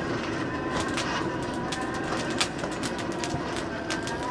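Forge fire crackling with irregular sharp pops as the kindling and char burn, over a steady rushing hum of air being blown into the fire pot.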